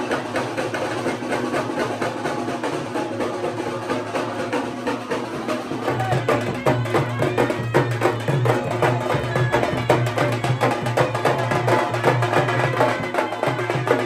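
Music with loud, dense percussion. A heavier bass line comes in about six seconds in.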